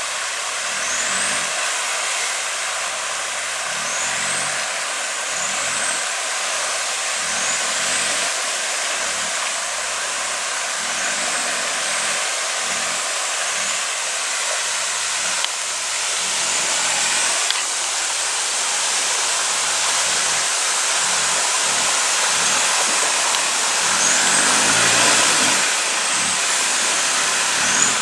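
Land Rover Discovery engine running at low revs as the truck wades through a shallow rocky river, over a steady rush of splashing water; the engine grows louder near the end. Short rising bird chirps come now and then.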